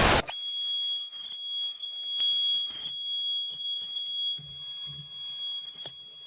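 A steady high-pitched tone held unbroken, with faint ticks and soft low knocks beneath it.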